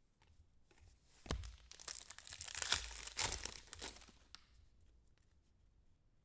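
A trading-card pack wrapper torn open and crinkled: a sharp snap about a second in, then a couple of seconds of tearing and crinkling that dies away.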